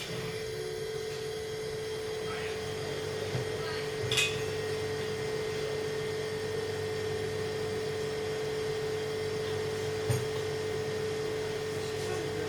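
Gas combi steamer running with a steady hum and a constant tone that starts abruptly, with a light knock about four seconds in and another about ten seconds in.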